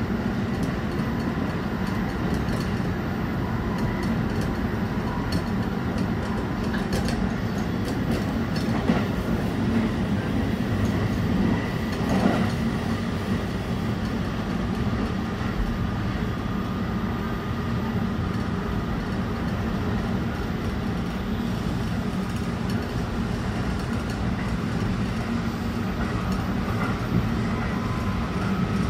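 Running noise heard inside the cabin of a JR West Special Rapid electric commuter train at speed: a steady low rumble of wheels on rail, with a faint high whine and a few sharp clicks.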